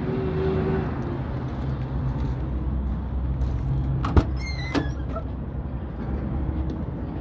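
Cat 3406 inline-six diesel of a Kenworth T800 idling steadily. About four seconds in, a sharp click of the door latch is followed by a short squeak falling in pitch as the cab door swings open.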